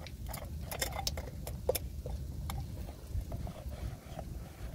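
Scattered sharp metal clicks and taps as a 19 mm combination wrench is fitted onto a car's tie rod and jam nut, over a low steady rumble.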